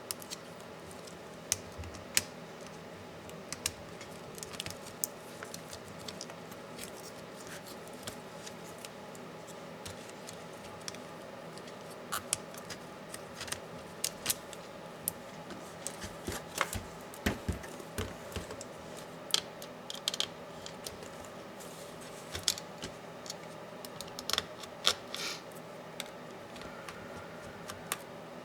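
Scattered small clicks and taps of hand tools and plastic laptop parts being handled during laptop disassembly, over a steady faint hum.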